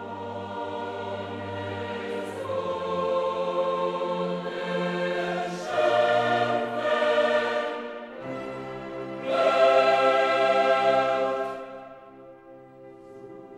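Choir with orchestra singing long held chords, swelling loudest about six and ten seconds in, then falling away near the end.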